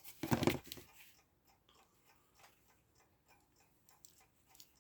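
Brief clatter of handling, then the Elco electric clock movement ticking quickly and regularly, faint and even.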